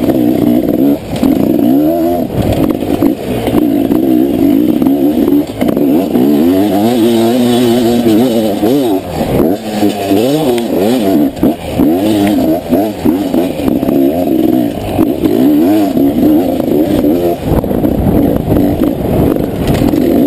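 Beta 300 two-stroke enduro motorcycle engine revving hard up and down with the throttle, its pitch rising and falling every second or so as the rider works it over rough dirt, with short knocks and rattles from the bike over bumps.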